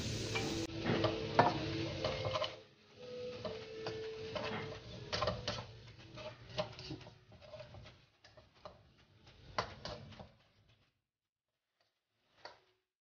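Plastic spatula tapping and scraping against a non-stick wok as pea shoots and prawns are tossed in a stir-fry: irregular clicks and scrapes that stop about two-thirds of the way in, with one more tap near the end.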